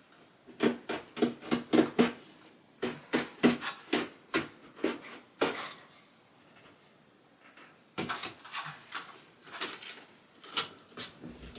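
Wallpaper being cut to trim off the excess: runs of short, crisp cutting sounds, a few a second, with a pause of about two seconds in the middle.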